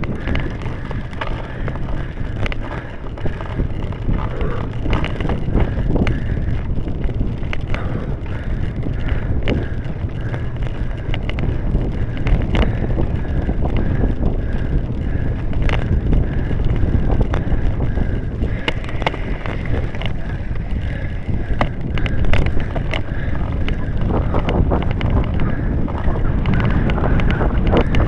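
Wind rushing over the microphone of a camera riding on a cyclocross bike, over a steady low rumble as it rolls along a dirt track and onto grass. Frequent sharp knocks and clicks come from the bike and camera rattling over bumps.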